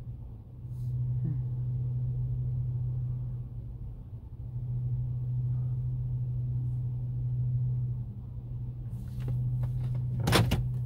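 Car cabin noise: a steady low engine and road hum with rumble beneath, easing off a few times. A single sharp thump near the end.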